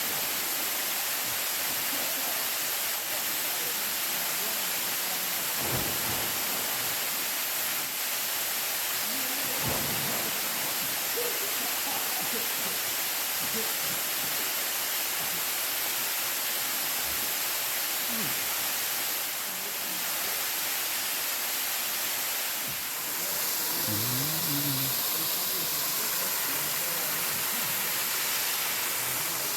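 Waterfall: a steady rush of falling water, with faint voices now and then.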